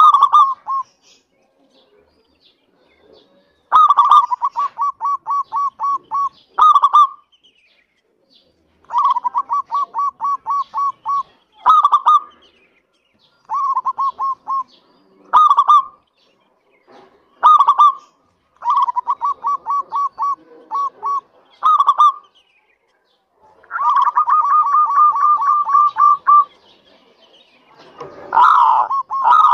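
Zebra dove (perkutut) singing its cooing song: about seven phrases with short pauses between, each a louder opening note, a quick even run of short coos at about four a second, and another louder note to close.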